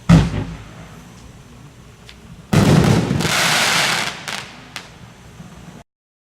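Consumer fireworks cake firing its final shots: a loud boom that rings away, then a sudden dense burst lasting about a second and a half and a few sharp pops. The sound then cuts off abruptly.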